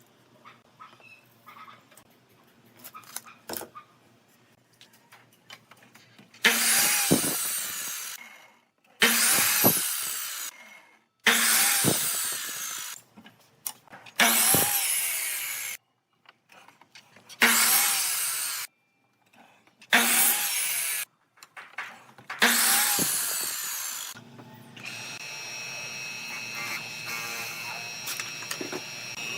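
Power tool working wood in seven loud bursts of about a second and a half each, every one starting sharply and then fading, with light handling clicks before the first.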